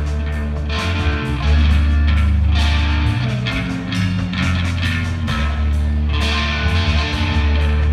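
Rock band playing an instrumental passage: electric guitar over bass guitar and drums, no vocals.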